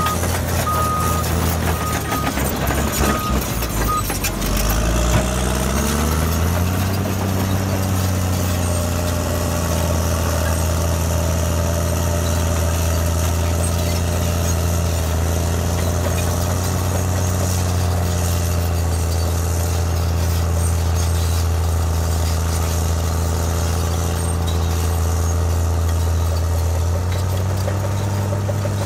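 Caterpillar D7R Series 2 bulldozer's diesel engine revving up and then running steadily under load as it pushes dirt, its pitch stepping up near the end. A backup alarm beeps about once a second for the first four seconds.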